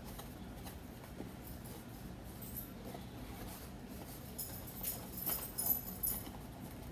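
Small clicks and crinkles of plastic and glass pieces being handled and fitted together, a scattered run of them about four to six seconds in over faint room noise.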